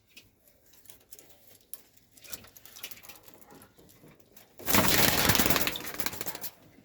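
Pigeon wings flapping hard in a loud flurry lasting about two seconds, a little over halfway in, with faint scratching and taps of feet before it.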